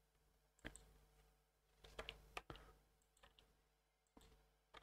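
Faint, scattered clicks of a computer mouse and keyboard, about six in all, over near silence.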